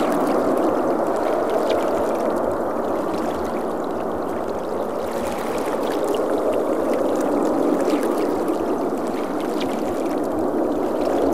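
Jet airliner engines running with a steady roar that eases slightly midway and swells again near the end.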